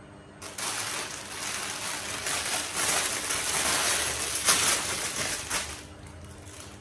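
Plastic packaging crinkling and rustling as a parcel is handled and opened by hand. The sound starts about half a second in and dies away near the end.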